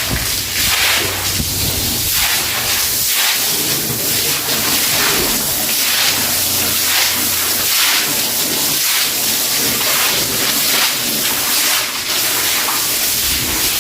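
A broom scrubbing a wet floor, in quick repeated scratchy swishes over a steady watery hiss.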